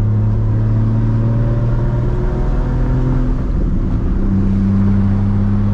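Straight-piped, big-turbo inline-six of a MKIV Toyota Supra running steadily at low revs under light throttle, heard from inside the cabin. About three and a half seconds in the engine note breaks and settles again as the driver short-shifts around 2500 RPM to keep it quiet.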